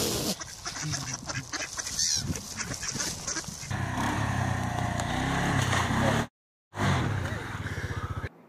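Mallard ducks quacking and calling in a crowd, then, from about four seconds in, an ATV engine running steadily, dropping out completely for half a second near the end.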